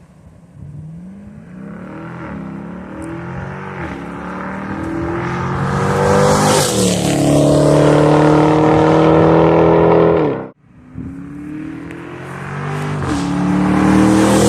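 Dodge 5.7-litre Hemi V8 exhaust revving up, its pitch climbing over several seconds and then holding high. The sound cuts off suddenly about ten seconds in, then climbs again.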